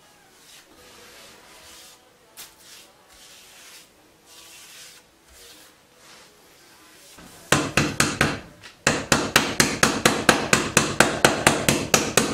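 Faint brushing for the first seven seconds or so, then a rapid, regular run of loud knocks with a short metallic ring, about five a second, from the small metal can of satin varnish being knocked on, as when its lid is tapped shut or it is rapped while being worked.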